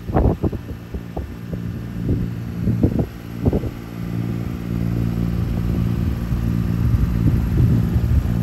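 A boat motor running with a steady low hum that grows slowly louder, with wind gusts buffeting the microphone over the first few seconds.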